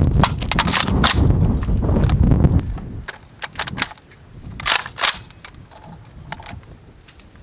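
WBP Jack 556SR rifle in 5.56 mm, an AK-pattern rifle, fired in quick succession with heavy booming echo for the first couple of seconds. A few fainter, scattered shots follow until about halfway through.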